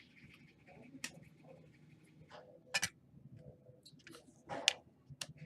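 Trading-card packs being handled: foil wrappers rustling and cards being snapped and flicked through, with several sharp clicks.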